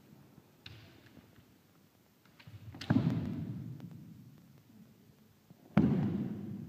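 Two kendo attacks about three seconds apart, each a sharp crack of a bamboo shinai and a stamp on the wooden floor with loud shouted kiai that die away slowly in the hall's echo.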